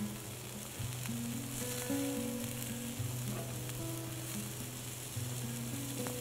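Shashlik skewers of meat sizzling over glowing charcoal, a steady hiss with small crackles. Soft background music with slow, held bass notes and a gentle melody plays over it.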